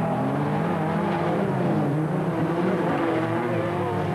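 Engines of several folkrace cars racing past, revving up and down through the gears, their pitches overlapping.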